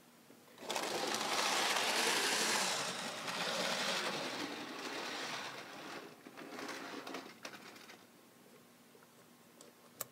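Hornby HO-scale Percy model locomotive running fast on the track, its small electric motor whirring and wheels rattling on the rails. It starts about half a second in and fades as the engine pulls away.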